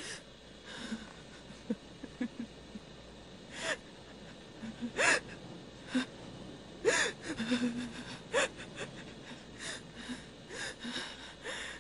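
A woman crying in fear: a run of sharp, shaky gasping breaths and small whimpers, coming irregularly.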